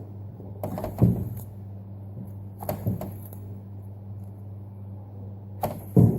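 Three short clusters of knocks and clicks from objects being handled, the last the loudest, over a steady low hum.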